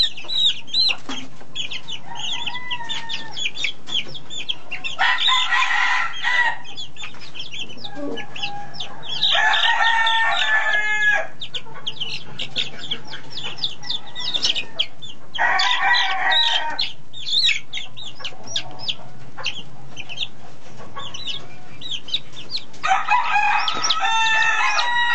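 Chicks cheeping rapidly and continuously, with a rooster crowing four times over the top, each crow lasting about a second and a half to two seconds.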